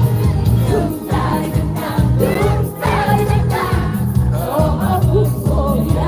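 Live trot song: a woman singing a wavering melody over a band backing with a strong pulsing bass beat.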